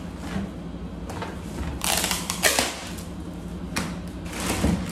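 Plastic wrapping on a rolled, vacuum-packed mattress crinkling and rustling as it is handled, in irregular bursts, the loudest about two seconds in and again near the end.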